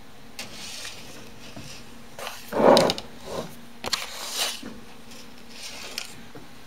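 Gerbils scrabbling and digging in shredded paper bedding, rustling in several short bursts. A louder dull bump comes a little before the middle.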